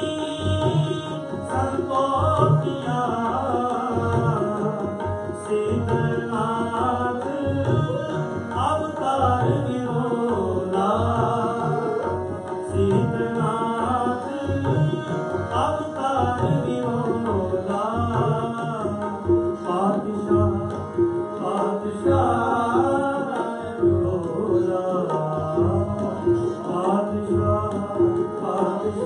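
Sikh shabad kirtan: a man singing to harmonium, with tabla keeping a steady rhythmic accompaniment and a bowed string instrument alongside.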